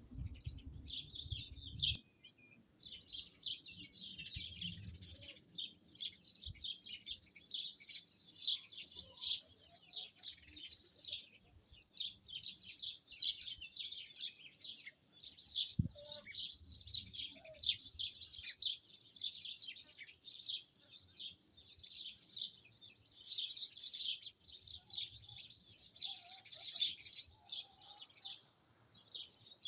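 Small birds chirping and twittering continuously in a dense, busy chorus of short high notes. A single soft knock comes about halfway through.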